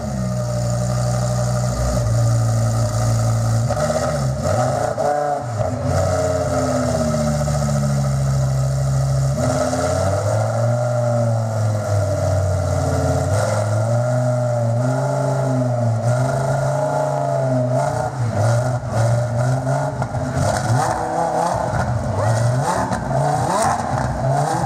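Audi R8 LMS GT4's naturally aspirated 5.2-litre V10 running in place at a steady fast idle. About ten seconds in the pitch drops a little, and from then on it rises and falls again and again under light revving.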